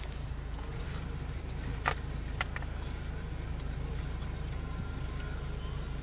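Car engine idling, a steady low hum heard from inside the car, with two short clicks about two seconds in.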